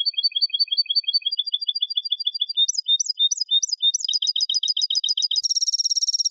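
European goldfinch (jilguero) singing a Málaga-style competition song phrase of rapid, repeated high notes. It starts abruptly, at about six notes a second, changes note type several times, and quickens into a fast, dense trill near the end.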